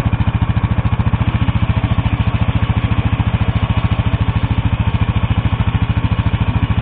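ATV engine idling with a fast, even, low beat, holding a steady speed without revving.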